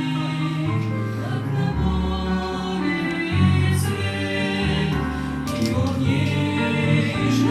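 Christian song with choir voices over a steady backing band and bass line.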